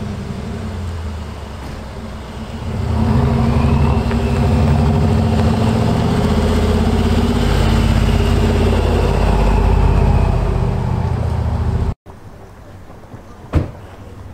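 Mercedes G-Class SUV's engine approaching and driving past, a deep steady drone that grows loud about three seconds in. It cuts off suddenly near the end, leaving a quieter background with one sharp click.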